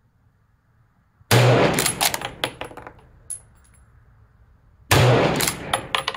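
Two rifle shots from a Lee-Enfield No. 1 Mk III bolt-action firing .303 British, about three and a half seconds apart. Each loud crack is followed by a decaying tail and a spatter of sharp clicks.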